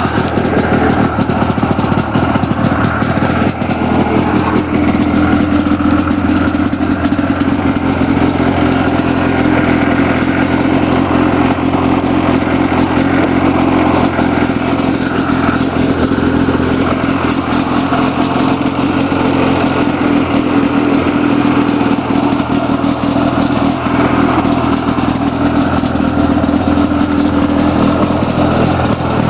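1979 Ski-Doo Blizzard 5500 snowmobile's two-stroke engine, just pull-started, running steadily at idle. It becomes a little louder and settles into an even tone about four seconds in.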